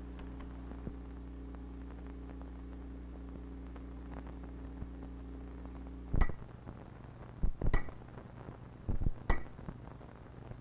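A steady low hum, then, starting about six seconds in, a mallet striking the ceremonial last railroad spike: a series of sharp, ringing metallic clinks, some in quick pairs.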